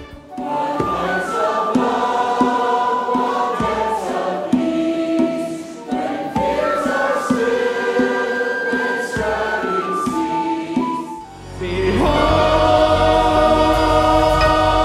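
A mixed choir singing a worship song with accompaniment. About eleven seconds in, after a brief dip, it gives way to a fuller, louder passage with strong bass under the voices.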